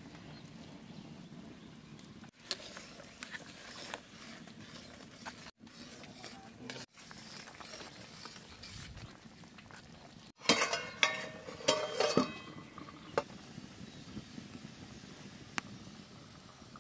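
Fish curry simmering in an aluminium pan, a low steady bubbling. A metal ladle stirs and clinks against the pan several times in a quick cluster about two-thirds of the way through.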